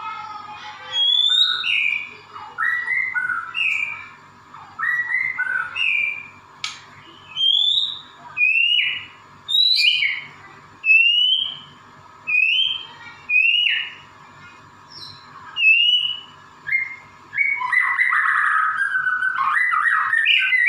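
White-rumped shama singing loudly: a series of clear whistled phrases, mostly rising slurred notes, about one a second with short pauses between them. Near the end the song breaks into a continuous rapid warble.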